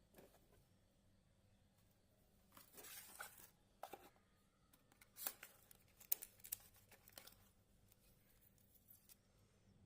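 Faint, scattered rustling and crinkling with a few sharp clicks, like packaging or plastic film being handled, between stretches of near silence.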